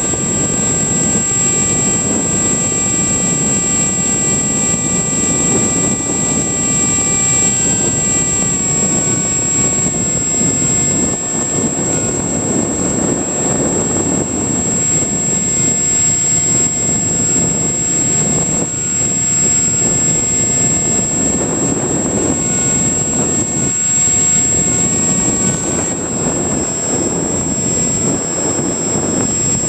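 Easy Star RC foam plane in flight: its electric motor and pusher propeller whine steadily under a rush of wind, with the pitch of the whine stepping down slightly about a third of the way in and shifting again near the end as the throttle changes.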